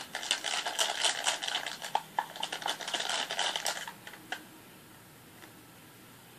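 Dense, rapid crackling and clicking of crunchy, bead-filled slime being stirred and worked, stopping about four seconds in, with one more click shortly after.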